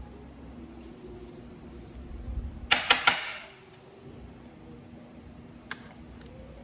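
Hard clear plastic card holder being handled and closed around a trading card: a quick run of sharp plastic clicks about three seconds in, then a single click near the end.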